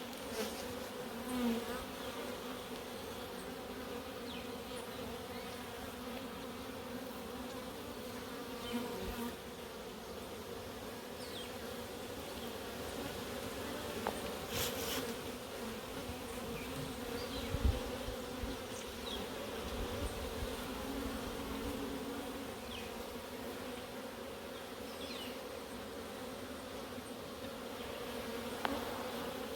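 Steady buzzing hum of many Africanized honey bees at the hive, with a few brief light knocks.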